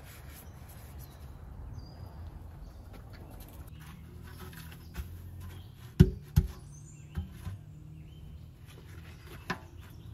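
A basin knocked against the ground twice in quick succession about six seconds in as it is tipped out, with a few lighter knocks later; small birds chirp now and then over a low steady hum.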